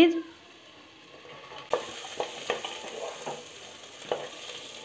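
Jackfruit seeds and onions sizzling in hot mustard oil in an aluminium pressure cooker, with a wooden spatula scraping and knocking against the pot as they are stirred; the sizzle and stirring start a little under two seconds in.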